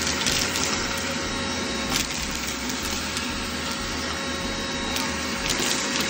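Vacuum cleaner running steadily while its wand sucks up scattered bird seed and pellets from a rug, with occasional sharp clicks as hard bits rattle up the hose.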